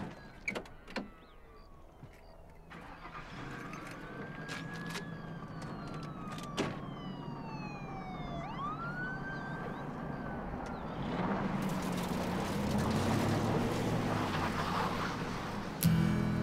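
Police siren wailing, its pitch slowly rising and falling, over a car engine running. About two-thirds of the way through, the engine revs up louder and the tyres spin on the gravel shoulder as the car pulls away.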